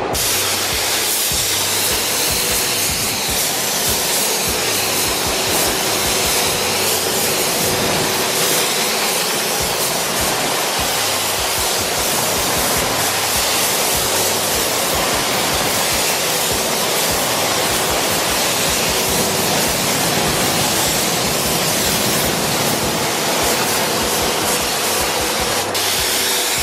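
Steady hiss of compressed air and paint mist from a gravity-feed spray gun spraying car door panels.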